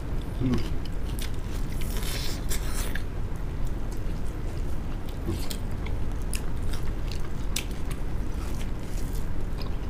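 Close-up eating sounds: chewing and lip-smacking as boiled duck and rice are eaten by hand, with scattered short clicks and snaps, over a steady low hum.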